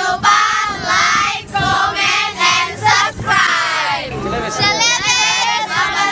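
A group of teenage girls singing together in high voices, several voices at once, with the singing breaking off and restarting in short phrases.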